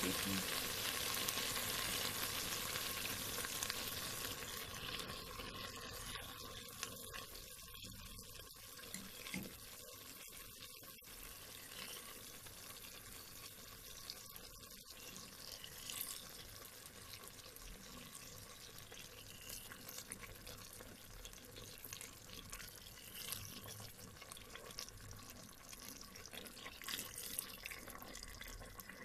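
Food frying in a pan, sizzling loudly at first and dying down after about four seconds to a quieter, steady crackle.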